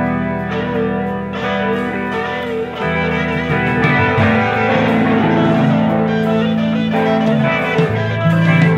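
Live band playing, with guitar over bass and drum kit.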